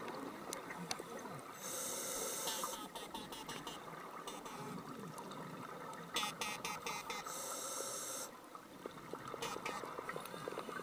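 Scuba diver breathing through a regulator underwater: two long hissing breaths in, about a second and a half and seven seconds in, with crackling, bubbling exhalations between them.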